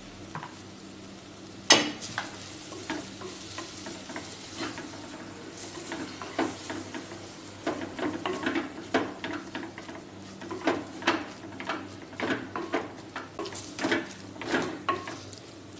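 Wooden spoon stirring and scraping onion, tomato and spice masala in a clay pot while it sizzles in oil, in quick repeated strokes. There is a sharp knock about two seconds in.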